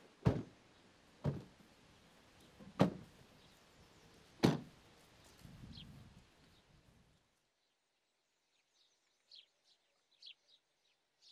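Car doors of a Chevrolet sedan slamming shut one after another, four times. After a few seconds the background noise drops away and faint bird chirps are heard.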